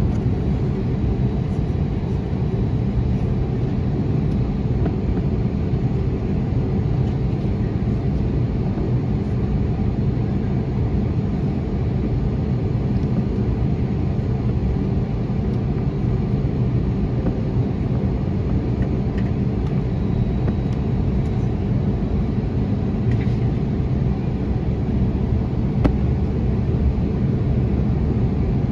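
Airbus A321neo engine and airflow noise heard from inside the cabin during takeoff: a loud, steady low rumble.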